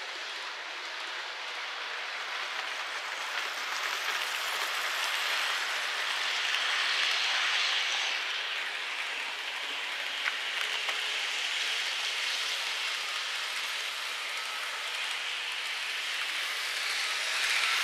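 N-gauge model train running on track: a steady rolling hiss and rattle of small wheels on rails that swells and fades, louder around the middle and again near the end.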